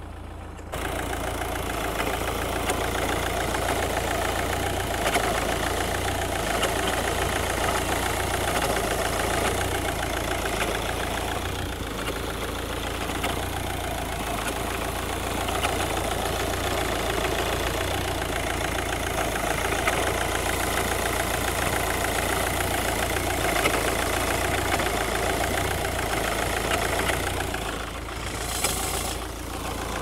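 Vauxhall Vectra C's 1.9 CDTi four-cylinder turbodiesel idling, heard close up in the engine bay, getting suddenly louder about a second in.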